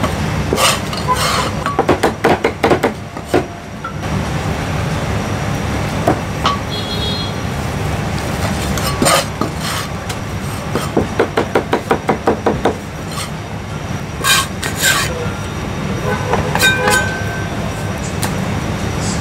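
Chinese cleaver chopping marinated meat on a thick round wooden chopping block: two quick runs of knocks and single chops between them, over a steady low hum.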